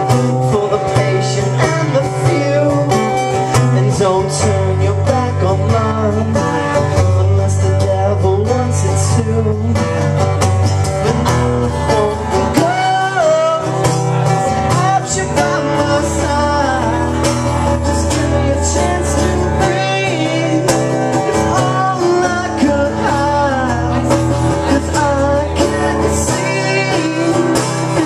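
A man singing a country-folk song while strumming an acoustic guitar, performed live through a microphone.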